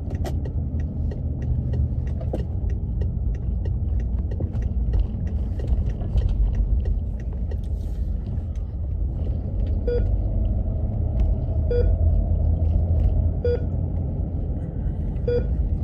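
Steady rumble of road and engine noise inside a moving car's cabin, with light regular ticking through the first half. From about ten seconds in come four short beeps, about two seconds apart.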